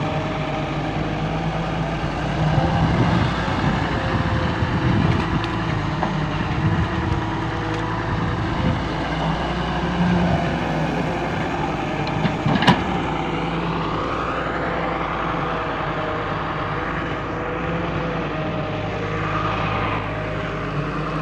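Volvo EW130 wheeled excavator's diesel engine running steadily, with one sharp knock about twelve and a half seconds in.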